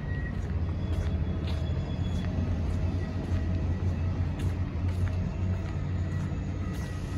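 Steady low engine rumble, like a diesel machine running.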